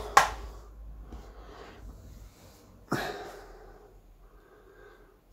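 Kärcher steam cleaner letting out short bursts of steam: a sharp hiss just after the start and another about three seconds in, each fading away.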